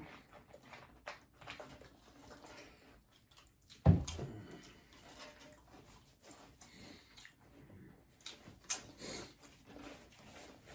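Quiet eating sounds: chewing and the light crackle and rustle of chips and sandwiches being handled. A single sharp thump comes about four seconds in, and a few crisp crunches near the end.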